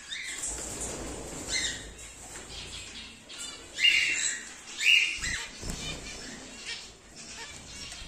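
Caged cockatiels and zebra finches calling in short chirps, with two louder calls about four and five seconds in. Wings flutter softly near the start, and there are two low thumps shortly after the second loud call.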